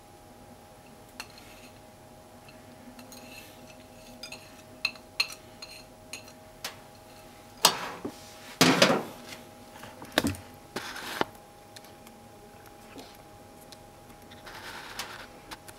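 Kitchen clatter: scattered light clicks, then several louder knocks and clinks about eight to eleven seconds in, like dishes or utensils being handled, over a faint steady hum.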